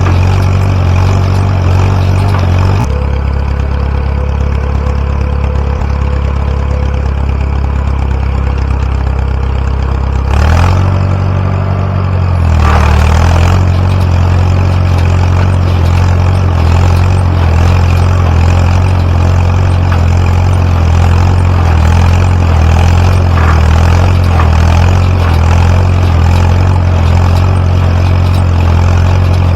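Tractor engine running steadily while driving a Massey Ferguson No. 12 square baler. Its note drops about three seconds in and comes back up between about eleven and thirteen seconds in.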